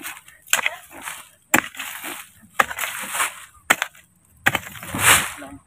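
A hoe blade chopping into dry soil among tree roots: four strikes about a second apart, each followed by the gritty scrape of loosened earth, then a longer scrape near the end.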